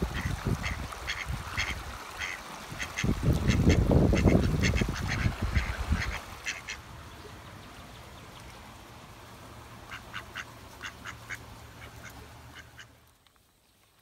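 Male mallard ducks calling, short quacks in quick runs that come and go. A loud low rumble about three to six seconds in.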